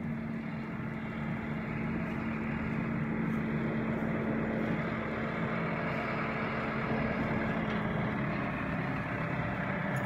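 New Holland T6.145 tractor engine running with a steady hum as the tractor drives up towing a McHale V660 round baler.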